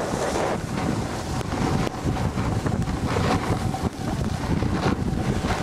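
Wind rushing over the microphone of a camera carried by a snowboarder riding downhill, with a low rumble and the hiss and scrape of the board sliding over the snow.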